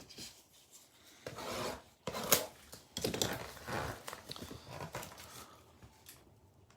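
Trading card box and its wrapping being torn open and handled: a run of scraping, tearing and crinkling noises, with a sharp crackle a little over two seconds in.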